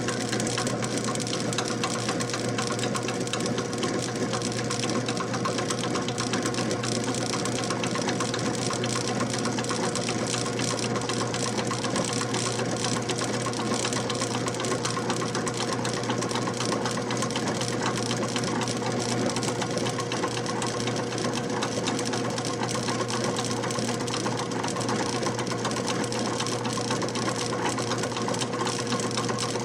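Electric water pump running steadily after start-up: a constant low motor hum with a steady higher tone over a dense mechanical whirr, unchanging throughout.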